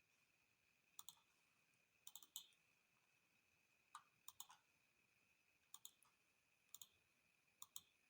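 Near silence with faint sharp clicks, singly and in quick pairs or threes, every second or two, over a faint steady high-pitched whine.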